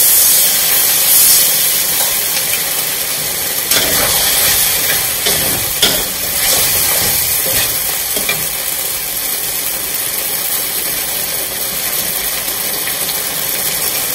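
Sweet-and-sour sauce sizzling and hissing in an aluminium wok as cornflour slurry is poured in. A metal spatula then stirs and scrapes against the wok a few times between about four and eight seconds in, over the steady hiss.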